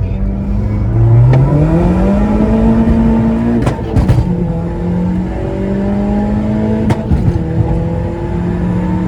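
Seat Leon's 1.8-litre 20-valve turbocharged four-cylinder accelerating, its pitch climbing for a couple of seconds. Around four seconds in, and again near seven seconds, the throttle closes and the turbo gives short fluttering chatters before the engine pulls again.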